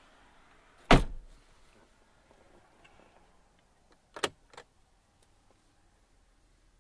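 Car door of a Mazzanti Evantra shutting with a single heavy thump about a second in, followed about three seconds later by two sharp clicks close together; no engine running.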